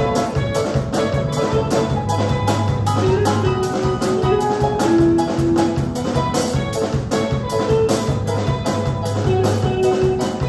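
Live gospel praise band playing an instrumental passage: a drum kit keeps a steady quick beat, about four hits a second, under held bass and keyboard chords.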